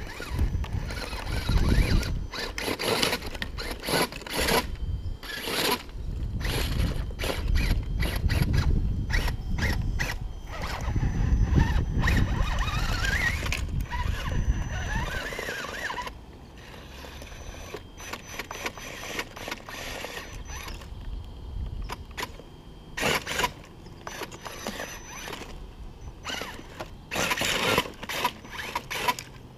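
RC rock crawler's brushless motor and geared drivetrain running in short stop-start bursts, whining and grinding as it crawls over logs, with a rising whine about halfway through. A low rumble runs under the first half and then drops away.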